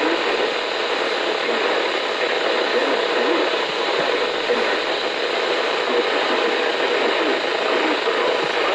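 Steady radio static from a weather radio receiver: an even hiss of a noisy signal, with faint wavering traces buried under it.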